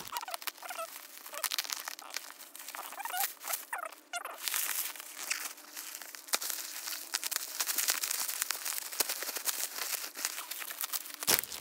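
Plastic bubble wrap crinkling and crackling as it is handled and pulled around a boxed package, with many small crackles throughout. A few short meows from a cat come in the first four seconds.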